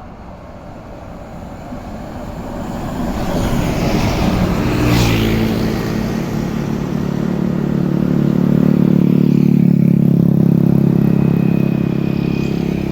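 Road traffic building to a close pass of a large vehicle about five seconds in. After that a bus engine runs close by with a steady drone that swells and then eases off slightly.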